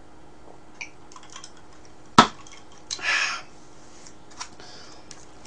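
A stemmed wine glass set down on the table with one sharp knock a little over two seconds in, followed about a second later by a short noisy burst, with a few small clicks and taps around them.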